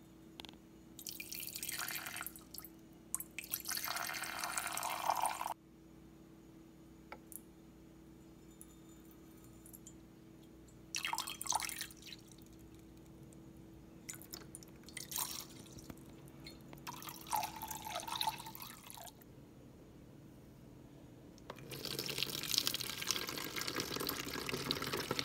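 Liquid being poured in several bursts: hydrogen peroxide poured into a glass measuring cup, then, for the last few seconds, one longer steady pour from the glass cup through a plastic funnel into a plastic spray bottle.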